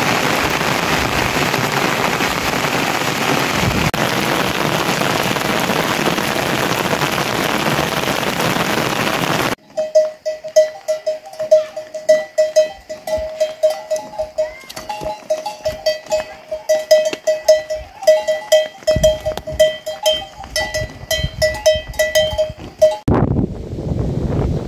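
A steady loud rushing noise for about ten seconds gives way to the metal neck bells of a herd of walking water buffalo, clanking and ringing in an uneven rhythm for about thirteen seconds; the rushing noise returns near the end.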